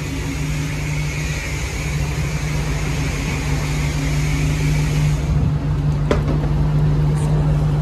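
Car-wash pressure wand spraying water with a steady low hum underneath; the hiss of the spray stops about five seconds in, followed by a single click.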